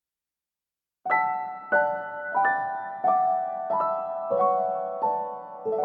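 Slow, gentle solo piano music begins after about a second of silence. Notes or chords are struck about every two-thirds of a second, each ringing and fading, and the melody steps gradually downward.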